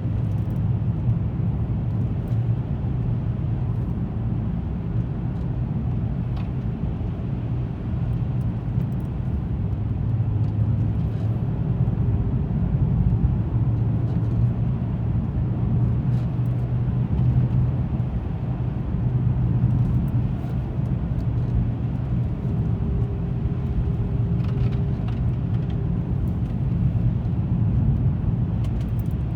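Car being driven at a steady speed: a continuous low rumble of engine and tyres on the road, with a few faint ticks here and there.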